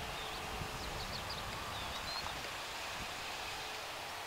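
Airbus A321neo taxiing away at idle thrust: a low, steady jet engine rumble with a faint whine that fades out in the first second, while small birds chirp high over it.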